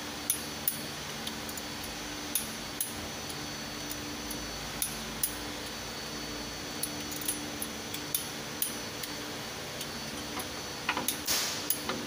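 Light metallic clinks and taps of hand tools and engine parts being handled, irregular and scattered, over a steady background hum. A short rushing noise comes near the end.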